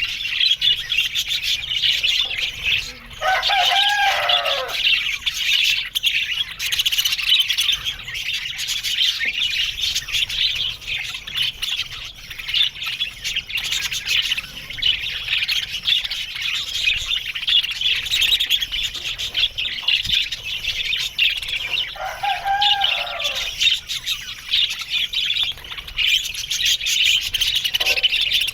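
A flock of budgerigars chattering and warbling in a dense, continuous stream of chirps. Two lower, arching calls stand out, about three seconds in and again about twenty-two seconds in.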